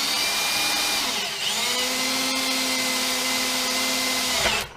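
Electric drill running at speed, drilling a small stop hole at the end of a frost crack in a Rotax 125cc cylinder. Its whine drops in pitch a little over a second in as the bit bites, holds steady, then winds down near the end.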